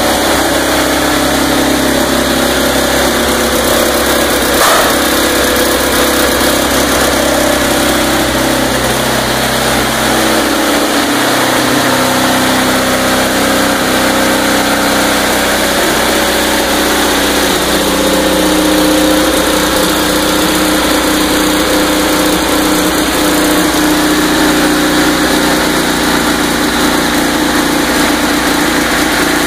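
An 18-litre Ford GAA V8 tank engine, fuel-injected with twin Garrett turbochargers, running steadily on its very first start. There is one sharp click about five seconds in, and the note of the engine shifts around ten to twelve seconds in.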